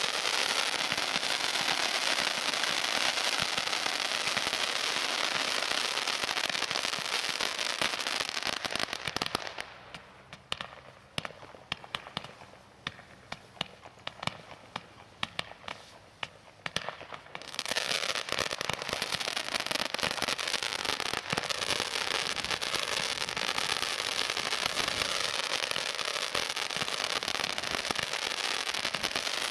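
Weco Power Tec PRO 300.1 multi-battery firework compact firing, a dense stream of crackling and popping shots. About ten seconds in it thins to scattered single cracks for several seconds, then turns dense again.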